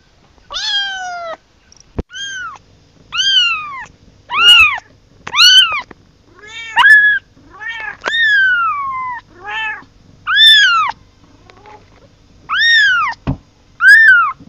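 A very young black kitten crying for its mother: about a dozen high-pitched meows, one roughly every second, each rising then falling in pitch.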